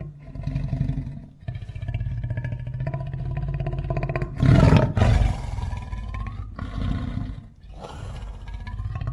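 Custom monster roar sound effect, mixed from film-monster roars with lion and grizzly bear roars. It is a run of long, gravelly roars with short breaks between them, and the loudest, harshest one comes about halfway through.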